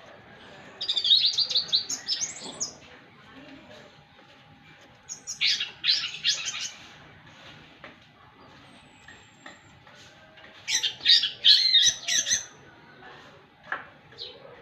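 Orange-headed thrush singing: three loud bursts of rapid, varied song phrases a few seconds apart.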